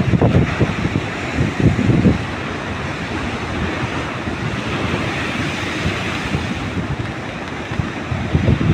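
Sea waves washing, a steady rushing hiss, with wind buffeting the microphone in the first two seconds.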